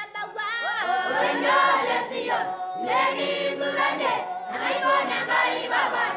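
A choir of voices singing together.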